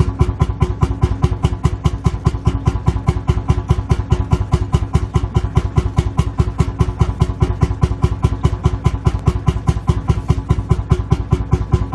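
Lanz Bulldog's single-cylinder two-stroke hot-bulb engine idling, a steady, even chain of firing thumps with no change in speed.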